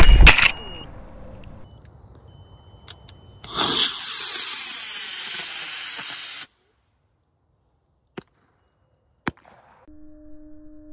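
Model rocket motor noise. The end of a loud burn fades out in the first second. About three and a half seconds in, a sudden loud hiss of the motor burning sets in and cuts off abruptly about three seconds later. After near silence with two sharp clicks, a faint steady low tone comes in near the end.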